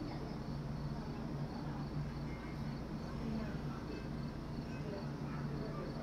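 Night insects chirping in an even rhythm, a few high chirps a second, over a low steady hum.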